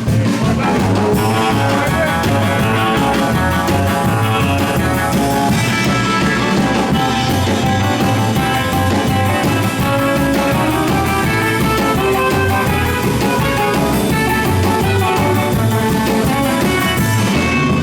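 Live rock and roll band playing an instrumental break, electric guitar leading over bass and drum kit with a steady beat.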